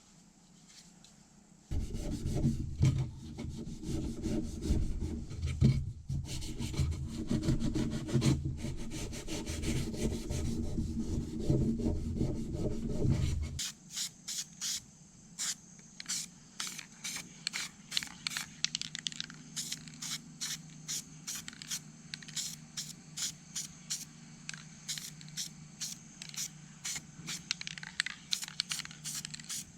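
Rough rubbing and scraping by hand for about twelve seconds, then a steady run of sharp clicks, about three a second, over a faint hum.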